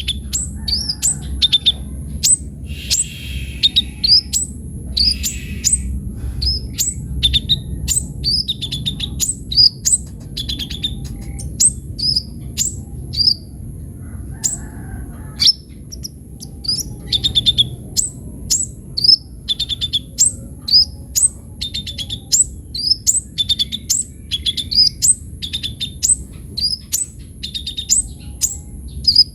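A kolibri ninja (sunbird) singing a lively, continuous song of sharp high chirps and quick downward-sweeping notes, several a second, over a low steady background rumble.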